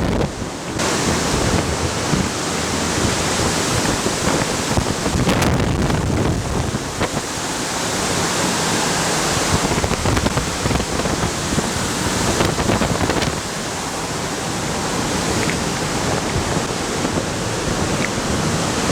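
Strong draught driven by a VOD-40 mine ventilation fan: a loud, steady rush of air with wind buffeting the microphone.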